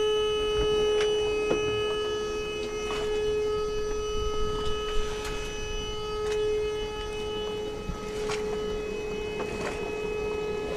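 Marine engine-panel alarm buzzer sounding one unbroken tone after the yacht's engine has been stopped, with a few light knocks on deck.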